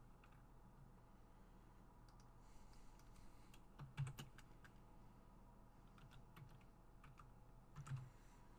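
Faint, scattered clicks of a computer mouse and keyboard over near-silent room tone, with a slightly louder pair of clicks about four seconds in and again near the end.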